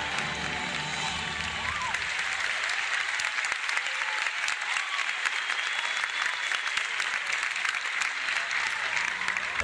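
Theatre audience clapping steadily as the show's music fades out in the first couple of seconds.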